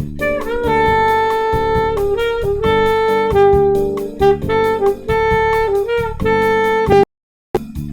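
Saxophone playing long sustained notes that dwell on the ninth (F sharp) over an E minor chord, with a backing track keeping a steady beat. The sound drops out completely for about half a second near the end.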